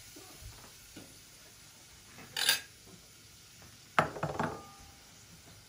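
A small ceramic bowl set down on a kitchen worktop about four seconds in: a sharp clink followed by a few quick knocks and a brief ringing. A short hiss comes about two seconds earlier.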